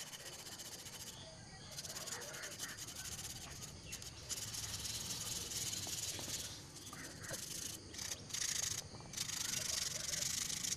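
Sandpaper rubbing over a dried wall-putty coating on a bottle, smoothing the rough patches: a faint rasping hiss in repeated strokes, broken by brief pauses.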